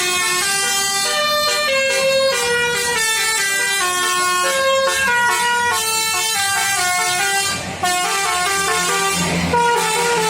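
Basuri telolet horn playing a melody in quick stepped notes, with a brief break about eight seconds in.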